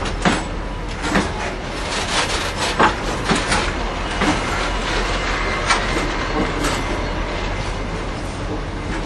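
Kuranda Railway train carriage running along the track: a steady low rumble with irregular clacks and knocks of the wheels over the rails.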